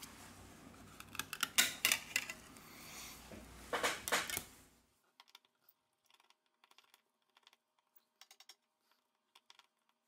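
Sharp small clicks and taps of hands handling a smartphone's opened casing on a table, with the loudest clicks about a second and a half in and around four seconds in. After about five seconds, only faint sparse ticks remain, from a precision screwdriver working the small screws of the phone's mid-frame.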